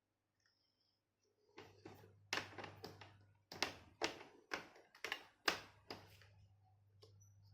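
About a dozen sharp clicks and knocks, starting about a second and a half in, of a laptop SSD and its mounting hardware being pushed and knocked against the drive bay while trying to seat it in the connector.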